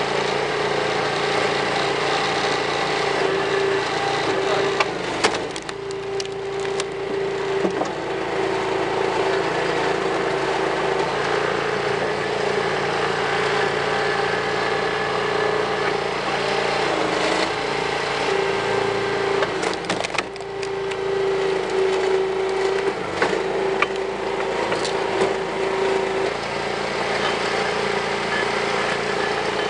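Engine-driven homemade log splitter running steadily while a birch round is forced onto its wedge, the wood cracking and splintering as it splits. The loudest cracks come about five to seven seconds in and again around twenty seconds in, with the engine note dipping briefly under the load.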